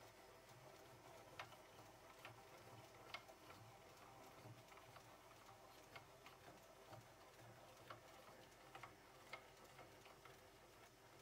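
Near silence with faint, irregular light clicks and ticks as the handwheels of a small DIY lathe's ball-screw cross slide and carriage are turned by hand, over a faint low hum.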